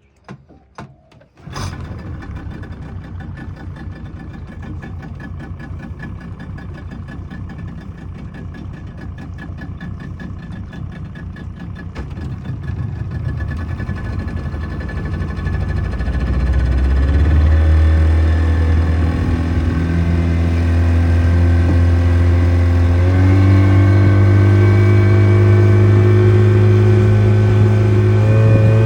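Yamaha outboard motor starting about a second and a half in after a few clicks, then running steadily at low speed. About halfway through it is throttled up, growing louder with a deep steady note, and it steps up again in pitch a few seconds before the end as the boat gets under way.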